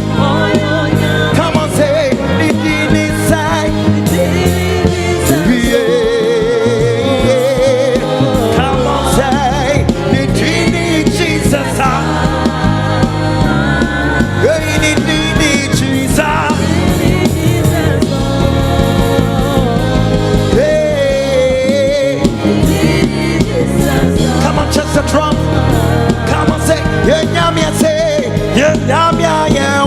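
Live gospel worship music: a band with bass and drums accompanying singing voices, with vibrato on held notes.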